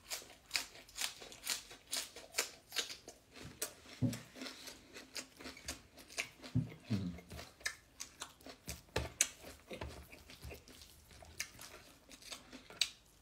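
Close-up chewing of food: a steady run of wet mouth clicks and crunches, about two or three a second, broken by a couple of short closed-mouth hums.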